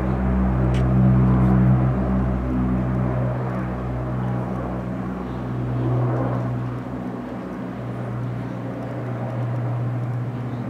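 Transall C-160 military transport's two turboprop engines: a steady low drone of several stacked propeller tones, gradually fading toward the end.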